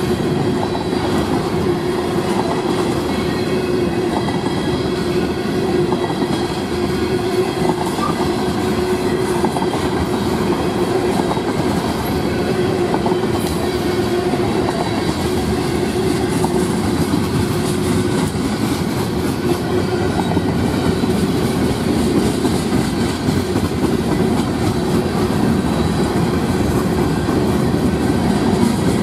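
Freight train cars, tank cars followed by covered hoppers, rolling past at a steady speed: continuous wheel rumble and clatter over the rail joints, with a steady hum through roughly the first two-thirds.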